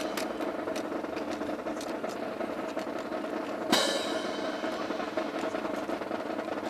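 Drill-team rifles being handled in a fancy drill: scattered sharp clacks and taps over a steady background murmur, with one loud sharp strike that rings on briefly near the middle.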